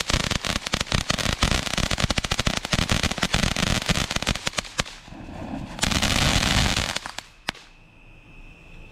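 Black Cat 'Packin' Purple' firework fountain spraying sparks with dense, rapid crackling. About five seconds in it turns to a loud steady hiss, which dies away about seven seconds in with a couple of last sharp pops as the fountain burns out.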